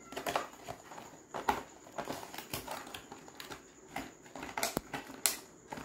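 Clear plastic stationery pouch crinkling and rustling as it is handled and rummaged through, with scattered short clicks and taps at irregular intervals.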